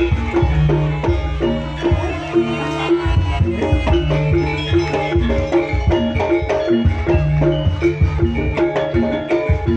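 Javanese jaranan gamelan music: drums beating under a quick repeating figure of tuned percussion notes, with held low tones coming and going.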